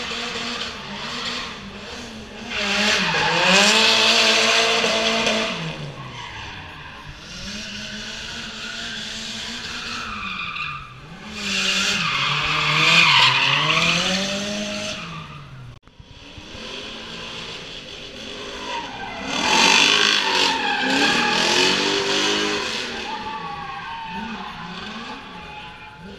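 Drift cars sliding past three times, each pass a few seconds of engine revving up and down under tyre squeal. Between passes the engines carry on more quietly.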